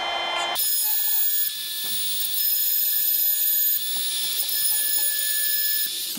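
Electric chainsaw-chain sharpener: its motor whines, then about half a second in the grinding wheel meets a cutter of the dull chain and a high-pitched grinding hiss takes over, which cuts off suddenly near the end.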